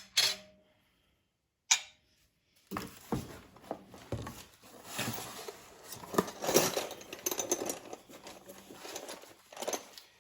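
Hands rummaging through a box of small parts and packaging: two sharp clicks, then about seven seconds of continuous rustling and clattering.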